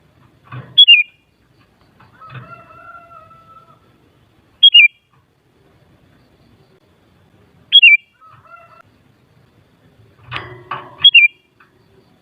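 Sooty-headed bulbul calling: four loud, sharp two-note calls that drop in pitch, spaced about three seconds apart. Between them come longer, lower calls with a rooster-like crow sound, the longest about two seconds in.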